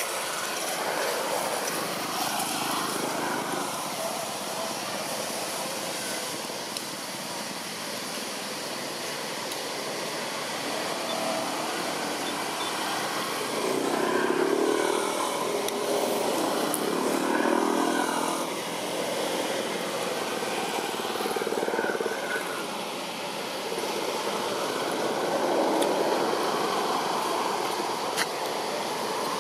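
Motor traffic drone, a steady engine noise that swells around the middle and again near the end as vehicles pass.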